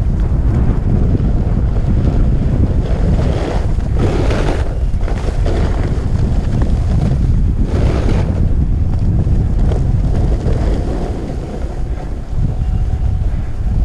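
Wind buffeting the microphone of a GoPro on a skier moving fast downhill, heard as a heavy, steady low rumble. The hiss of skis scraping over packed, groomed snow swells up twice, about four and eight seconds in.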